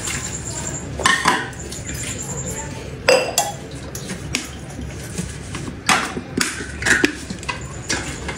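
A metal spoon clinking against a dish, a few separate clinks spread out, as a spoonful of mixture is stirred and tasted.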